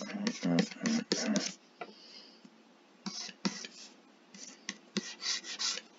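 Short scratchy strokes of a stylus rubbing across a drawing tablet in quick sweeps, mostly in the second half. Some low mumbling comes about a second and a half in.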